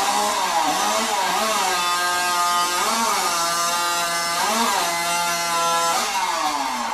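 Two-stroke competition chainsaw revved up and down a few times, then held at full throttle at a steady high pitch for about four seconds with two brief wobbles. Its pitch falls away as the throttle is released near the end.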